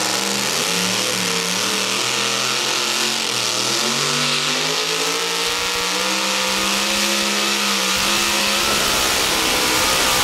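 Supercharged engine of a modified two-wheel-drive pulling truck at full throttle as it drags the sled down the track. It runs loud throughout, its pitch wavering and climbing, and it holds high and steady near the end.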